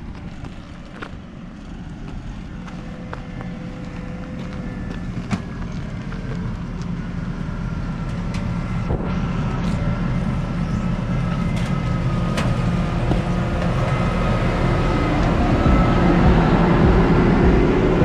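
New Holland CR9.90 combine harvester's diesel engine running as the machine drives along a lane toward and past, growing steadily louder and loudest near the end, with a high whine over the engine.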